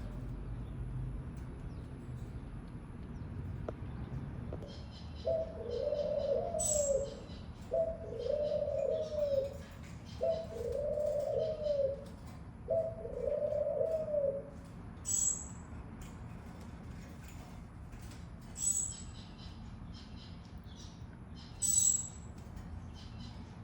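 A dove cooing: four low, arching coo phrases in a row, each lasting about a second and a half, in the first half. Short high chirps from another bird are repeated every few seconds throughout.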